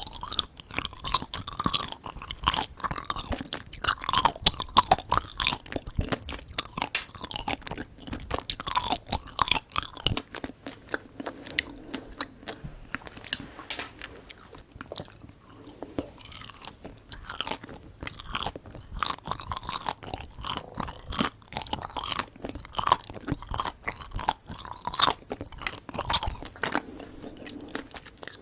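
Close-miked chewing of Korean sweets, a steady run of many small sharp clicks and wet mouth sounds.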